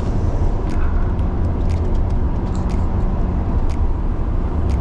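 Steady engine and road rumble inside the cabin of a moving Mercedes-Benz ML55 AMG, with a faint sharp tick about once a second.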